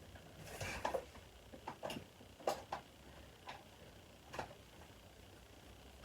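Hands handling box contents and packaging: a brief rustle about half a second in, then several small, separate clicks and taps.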